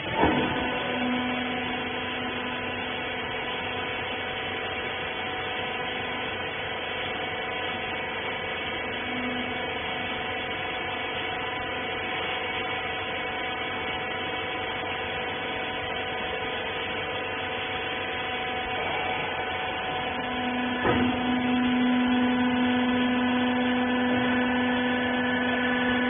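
Hydraulic rag baler running. A knock as it starts, then the steady whine of its hydraulic pump motor. About 21 s in there is a second knock, and a low hum in the whine grows louder.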